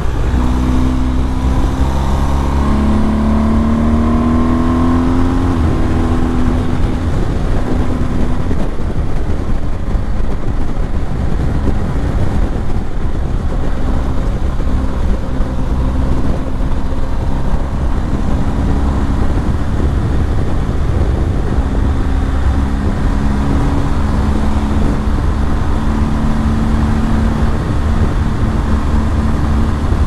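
BMW R 1250 GS boxer-twin engine accelerating in the first few seconds, its pitch rising, then pulling steadily at highway speed. Heavy wind rush over the microphone runs throughout, and the engine note stands out clearly again in the last several seconds.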